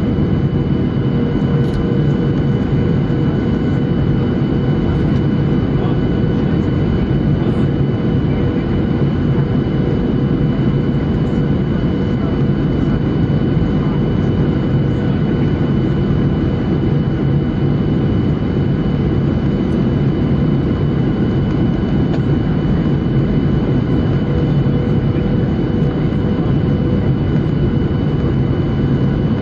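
Steady cabin noise of a Boeing 737-800 in descent on approach: its CFM56-7B turbofan engine running and air rushing past the fuselage, a loud even rumble with a faint steady hum and a thin high whine over it.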